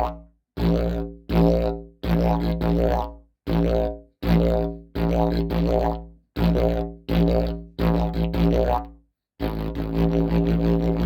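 Homemade didgeridoo droning: about ten short blasts, each fading and stopping dead, then from about nine seconds in a steady unbroken drone with a light rhythmic pulse.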